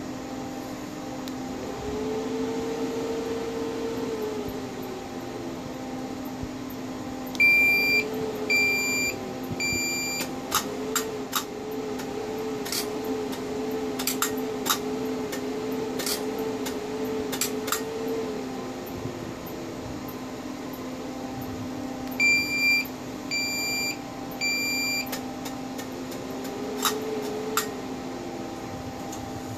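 Cynosure Apogee Elite laser powering up and running its system check: a steady hum under a whine that rises, holds and falls away several times. Two sets of three short beeps and a run of sharp clicks in the middle.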